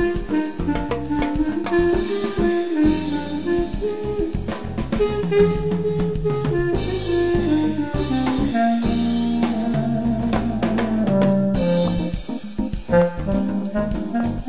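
B-flat clarinet playing a jazz samba melody line over a play-along backing track with drum kit and bass.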